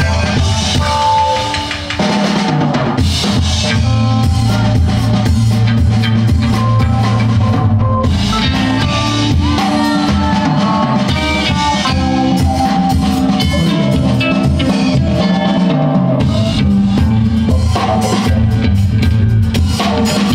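Live band playing an instrumental passage on drum kit, electric guitar, bass guitar and keyboard. The full band comes back in louder about two seconds in.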